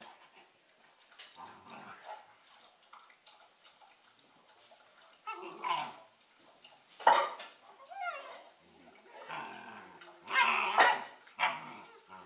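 Two 11-week-old smooth collie puppies play-fighting and vocalizing in short, irregular bursts of dog noises, one of them gliding up and down in pitch. The loudest burst comes about seven seconds in, with another loud run around ten to eleven seconds in.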